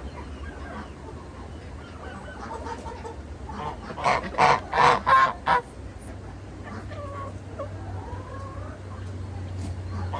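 Domestic geese honking: a quick run of about five loud honks about four seconds in, with softer calls before and after.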